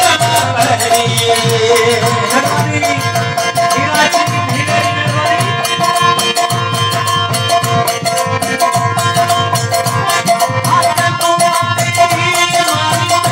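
Live Thari folk bhajan: a harmonium holding steady notes over a quick hand-percussion beat, with a man's singing voice.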